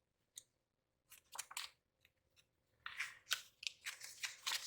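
Pages of a sticker book being flipped by hand: faint, scattered paper rustles and flicks, growing busier about three seconds in.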